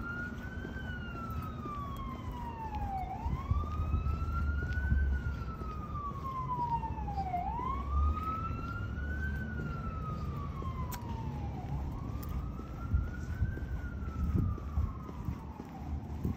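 A siren wailing. Its pitch rises and then falls slowly, about every four seconds, over a low rumble.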